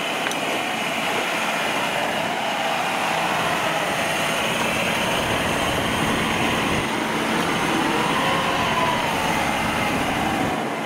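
Kubota DC70 crawler combine harvester climbing a steep bank under load: its engine and threshing machinery run steadily and loudly, with a faint whine that rises and falls in pitch midway.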